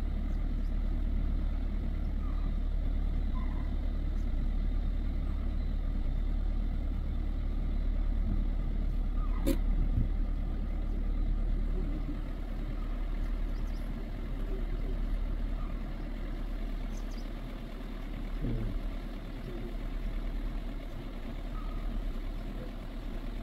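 Vehicle engine idling with a steady low rumble, and a single sharp click about nine and a half seconds in.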